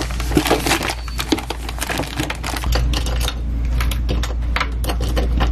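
Toiletries and small items being handled and set down on a bathroom counter: a quick run of light clicks, knocks and clatter.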